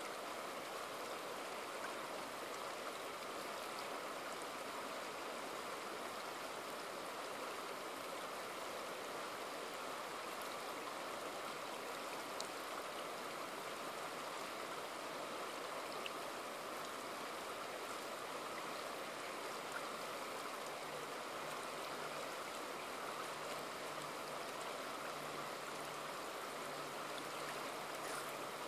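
Shallow river running steadily over rounded stones and boulders, heard close to the water's surface.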